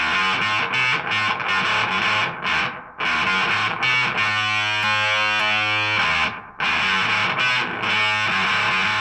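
Electric guitar (an Epiphone Les Paul Standard) played through a Marshall Origin 20 valve head with the gain up: distorted chords with short breaks between them, and one chord held for over a second just past the middle.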